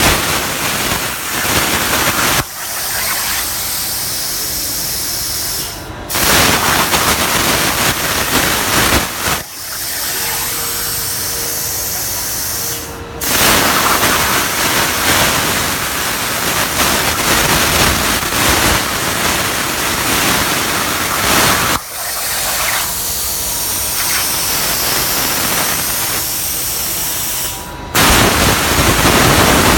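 CNC plasma cutter's torch hissing loudly as it cuts, heard in several short takes that change abruptly in level every few seconds.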